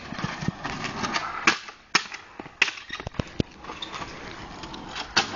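JD Bug kick scooter wheels rolling on asphalt, with a series of sharp clacks as the scooter hits the road.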